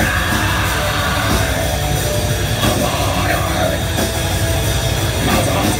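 A metal band playing live and loud: distorted electric guitars over fast, dense drumming.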